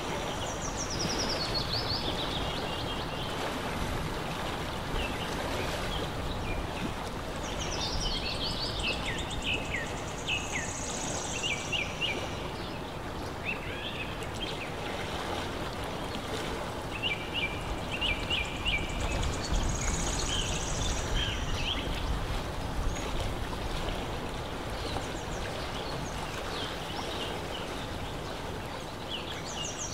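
Lakeside ambience: a steady rush of water with birds chirping in short high calls and trills, coming in bunches a few seconds apart.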